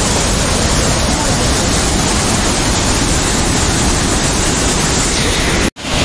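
Steady, loud rush of a wide waterfall in full flow, pouring over many rock ledges into a pool. The sound cuts out abruptly for an instant just before the end.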